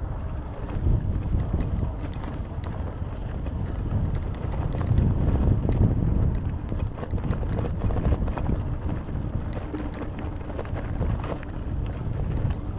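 Wind buffeting the microphone while riding a mountain bike, a steady low rumble, with scattered light clicks and rattles mixed in.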